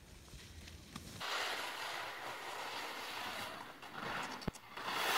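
Low wind rumble on the microphone. From about a second in it gives way to a steady hiss of skis sliding over snow, with a single sharp click a little after the middle.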